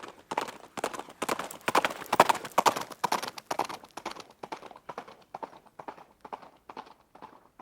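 Hoofbeats of a running horse in a quick, uneven rhythm. They grow louder to a peak about two seconds in, then fade away.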